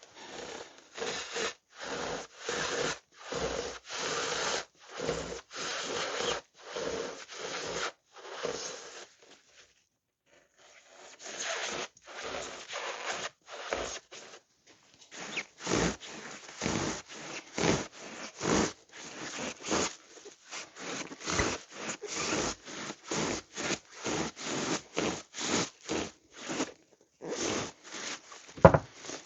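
Hand saw cutting into motorcycle seat foam with quick back-and-forth rasping strokes, about two a second, with a short pause about a third of the way in.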